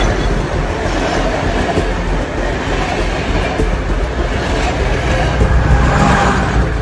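Train passing at close range: a loud, steady rumble and rattle of wheels and carriages on the rails.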